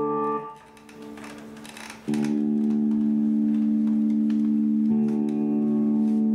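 Music of long held, droning chords: a chord that fades into a quieter, hissy stretch, then a loud sustained chord entering about two seconds in and shifting to another about five seconds in.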